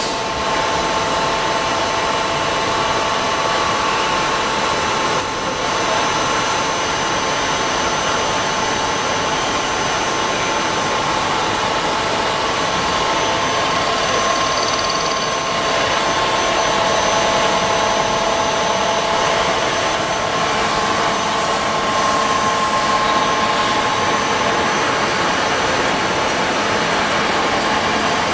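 Kekeisen bed-type milling machine running with its spindle turning at about 1,100 rpm: a steady mechanical hum with several steady whining tones, a little louder about halfway through.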